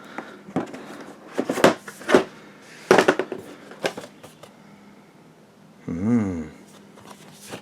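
Cardboard box and board-game pieces being handled: a handful of sharp clicks and rustles over the first four seconds. About six seconds in, a short hummed 'mm' sound from a voice.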